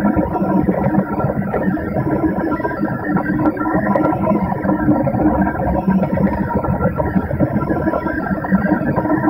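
Delta 3D printer running as it prints a clay vase: a steady mechanical hum with several constant tones and no pauses.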